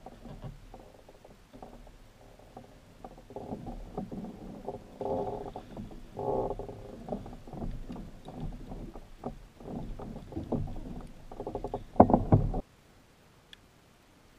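Water splashing and sloshing against a kayak hull in irregular bursts as a large rainbow trout thrashes at the surface and is brought into a landing net. The loudest burst comes near the end and stops suddenly.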